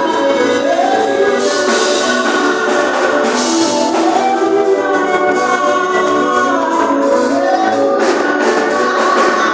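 Gospel music at full volume: a group singing over instrumental backing, with steady bright percussion keeping the beat.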